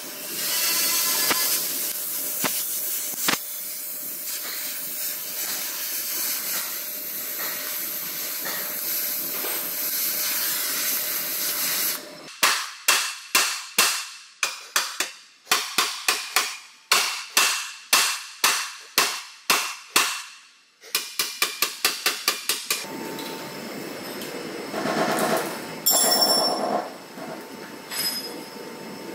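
Gas torch hissing steadily as it heats a bent steel chassis rail, then a heavy long-handled hammer striking the heated rail about twenty times, roughly two blows a second, to straighten it. A quick run of about ten faster strikes follows, then lower clattering with a few metal clinks near the end.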